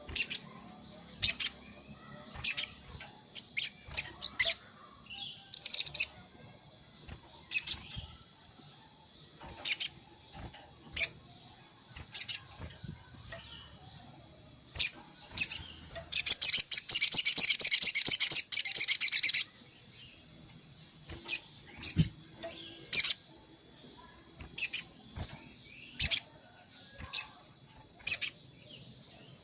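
Spiderhunter (sogon) calls used as a trapping lure: short, sharp chirps every second or two, with a fast rattling trill of about three seconds just past the middle. A steady high whine runs underneath.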